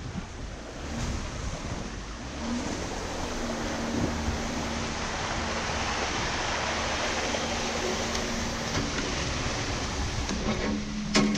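Jeep Wrangler JK pushing through a flooded trail rut: water washing and splashing around the front, with the engine running steadily underneath and wind on the microphone. The water noise eases near the end as the Jeep comes out onto sand, and a few sharp knocks follow.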